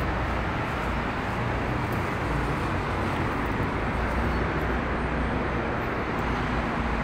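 Steady low mechanical hum under an even hiss, with no distinct knocks or changes.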